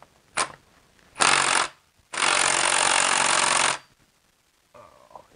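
Cordless impact wrench hammering on the front driveshaft's E12 Torx bolts through a socket extension. It fires three times: a brief blip, a half-second burst, then a longer run of under two seconds.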